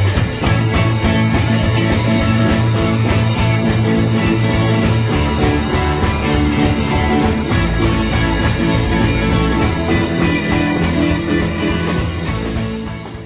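A band playing fifties- and sixties-style rock and roll, with no singing. The music fades away near the end.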